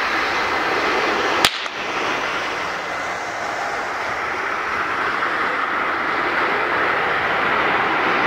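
Airbus A319's CFM56 jet engines at approach power as the airliner comes in to land, a steady rushing whine that grows a little louder in the second half. About a second and a half in, a single sharp click cuts across it.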